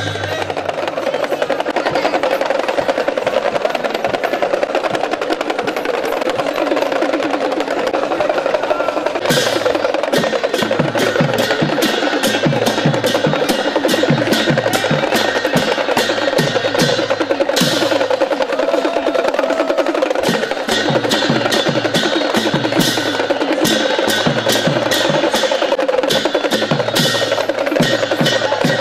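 Traditional Newar percussion: a barrel drum beaten in a fast, steady rhythm, with rapid sharp cymbal strikes over it.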